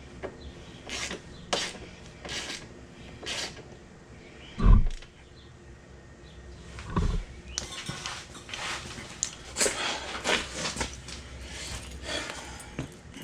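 Hands working on the side-by-side: a run of short scrapes, rustles and knocks, with one heavy thump a little under five seconds in and busier scraping and rustling through the second half.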